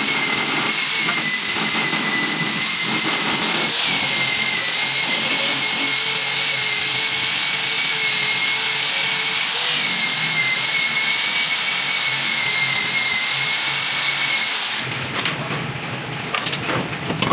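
CNC router spindle running with a steady high whine while cutting wood, its pitch dipping slightly now and then under load. It cuts off suddenly near the end.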